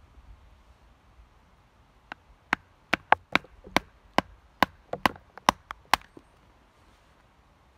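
Knife blade chopping branch stubs off a straight wooden stick: a quick run of about a dozen sharp chops of steel into wood, starting about two seconds in and stopping about six seconds in. The knife is an Anglo Arms 7-inch laced knife.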